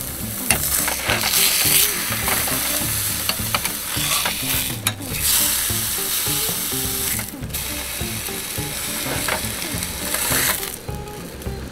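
Steak sizzling and crackling in oil on a hot square griddle plate, with a few light clicks of a metal spatula and meat fork against the plate. The sizzle eases off near the end.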